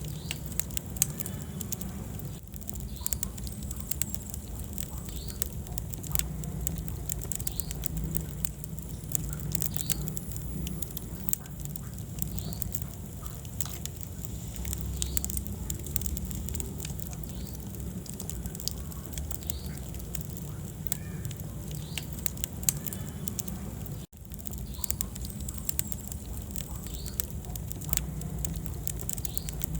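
Wood fire burning in a fireplace: a steady low rumble of flames with frequent sharp crackles and pops. The sound cuts out for an instant about three-quarters of the way through.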